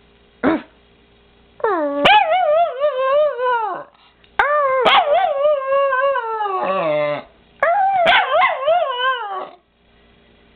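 Miniature pinscher howling: a short yip, then three long wavering howls, each sliding down in pitch.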